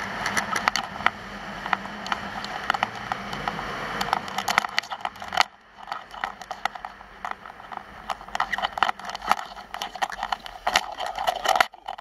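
Skis sliding and scraping over packed snow, a steady hiss full of crackling clicks; it drops off about halfway through as the skier slows onto the flat, leaving quieter scattered scrapes and clicks.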